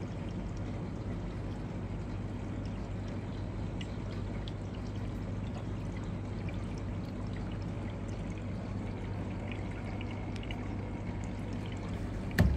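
Aquarium air bubbler: a stream of air bubbles rising and breaking at the water surface in a steady trickling rush, over a low steady hum.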